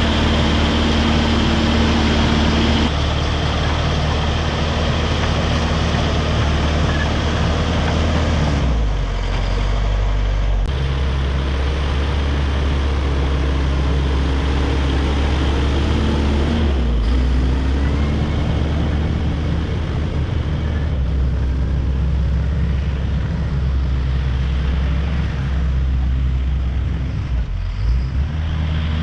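Caterpillar D5 wide track bulldozer's diesel engine running steadily under work, its low note shifting a few times as the load and revs change.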